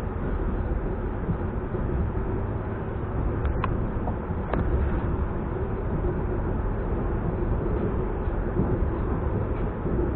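An ES2G "Lastochka" electric multiple unit running along the line, heard as a steady running noise of wheels on rails and traction equipment with a low hum. Two faint short clicks come about a third and halfway in.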